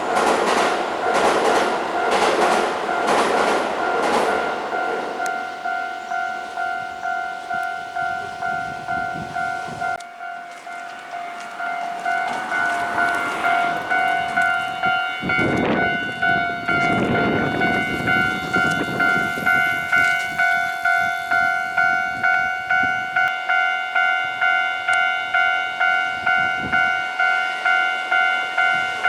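Japanese level crossing warning bell ringing its repeating electronic clang, a little under two strokes a second, as Keihan trains pass over the crossing. In the first few seconds a train's wheels clack rhythmically over the rail joints. The sound drops away abruptly near ten seconds, and around fifteen to twenty seconds another train rumbles past while the bell keeps ringing.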